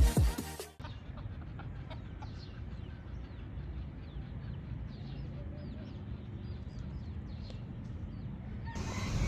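Birds chirping in many short, high calls over a steady low background rumble. Music stops just under a second in and comes back near the end.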